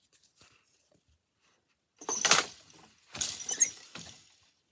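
Leclerc wooden floor loom being worked by hand: faint clicks and rustling, then two loud wooden clattering knocks about a second apart as the beater is brought against the weft and the shafts shift.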